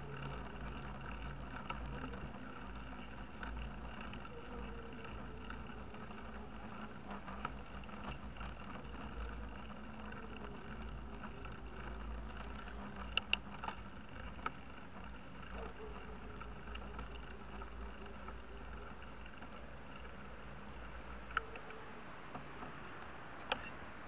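Mountain bike riding on tarmac, heard from a camera on the rider or bike: a steady rumble of wind and rolling road noise, with a faint tyre hum that rises and falls with speed. A few sharp clicks or rattles come around the middle and near the end.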